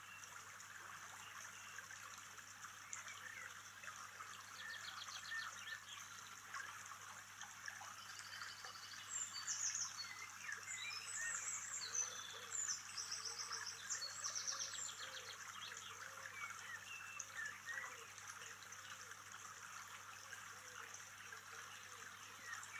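Woodland ambience of a small stream trickling over rocks, with songbirds chirping throughout and a burst of rapid, high trilling song in the middle.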